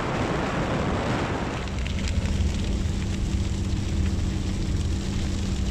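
Moving vehicle: wind rushing over the microphone for the first second or so, then the steady hum and road noise of the vehicle driving, heard from inside the cab.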